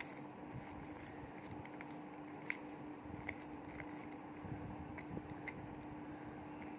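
Faint stirring of baking soda powder with a plastic spoon in a small plastic cup: light scraping, with about half a dozen small ticks of spoon on cup from a couple of seconds in. A steady low hum sits underneath.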